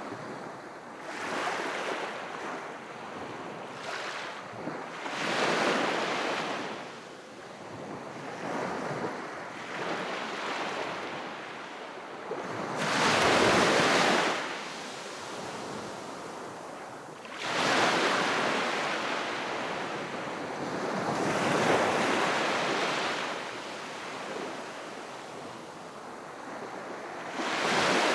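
Calm sea waves washing gently onto the shore, each wash swelling into a hiss and fading, about every four to five seconds. The loudest comes about halfway through.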